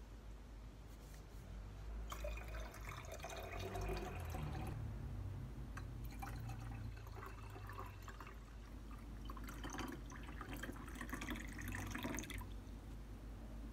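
Water poured from a plastic pitcher into a glass tumbler over a tea bag, a splashing stream filling the glass. It stops a little over a second before the end.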